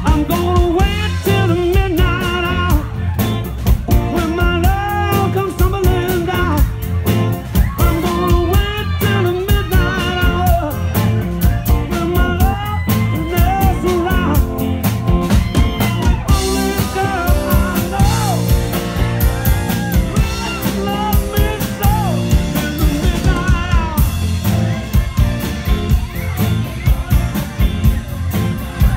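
Live band playing: a singer over a steady drum beat, with keyboard, electric guitar and trombone.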